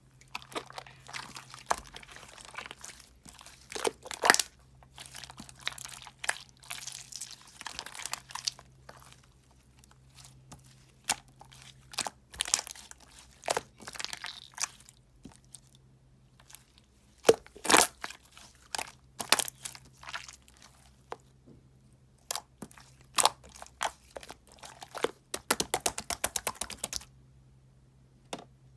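Soothing gel being crunched and crackled, in irregular bursts of sharp crackles, with a fast run of crackles near the end.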